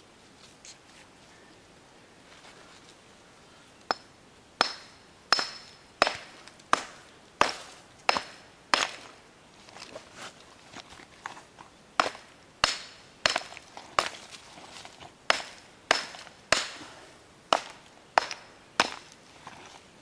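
A hammer repeatedly striking a 50-pound deer mineral block, breaking it into chunks. The sharp blows come at about one and a half a second, starting a few seconds in, with a short lull of lighter knocks midway before they resume.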